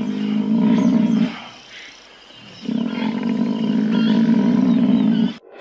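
Lion growling in two long, rough bouts. The first ends about a second in, the second starts about halfway through and cuts off abruptly near the end.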